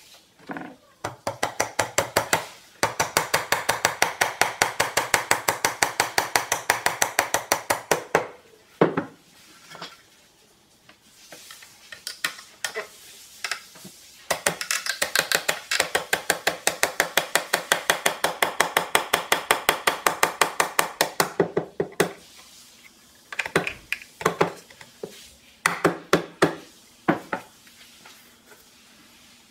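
Quick, even hammer strikes, about five a second, in two long runs, with a few scattered strikes between them and near the end.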